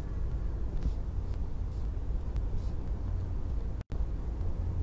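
Steady low rumble with no speech, briefly cutting out near the end.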